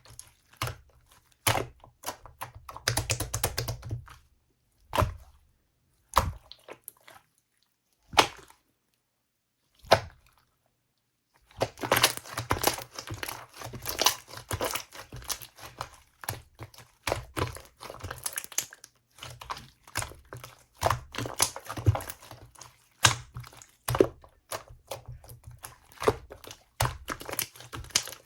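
Clear slime being pressed and stretched by hand, giving sharp clicking and popping sounds. In the first half it goes sparse, with only a few single pops, then turns to dense, rapid crackling and clicking for the rest.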